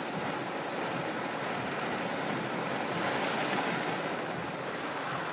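Heavy downpour: rain falling hard in a steady hiss and pelting the window glass.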